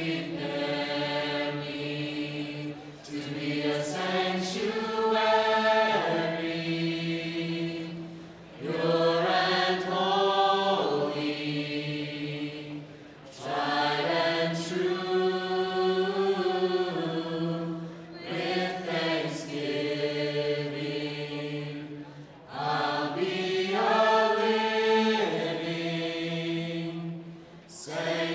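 Slow vocal music: singing held in long notes, in phrases about four to five seconds long with short breaks between them.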